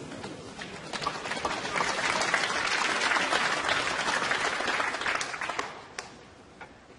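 Audience applauding: the clapping swells over the first couple of seconds and dies away about five and a half seconds in, leaving a few last claps.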